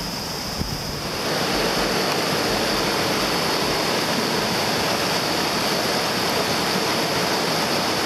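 A small waterfall on a mountain stream, water pouring steadily into a rocky pool. The rush gets louder about a second in, then holds steady.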